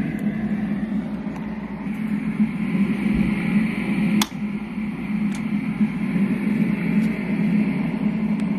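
Steady noise with a low hum, broken by a sharp click about four seconds in and a fainter click about a second later.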